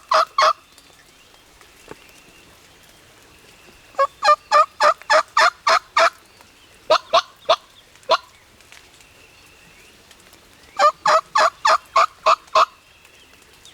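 Turkey yelping in runs of sharp, evenly spaced notes, about four a second: a short run at the start, a longer run about four seconds in followed by a few single notes, and another run near the end.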